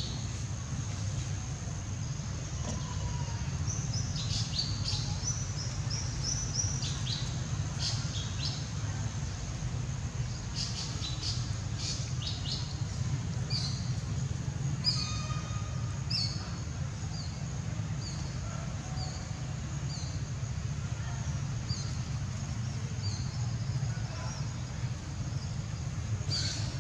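Small birds chirping in the trees: short, high, falling chirps, a busy run of them in the first half, then single chirps about once a second. Under them are a steady low rumble and a faint steady high whine.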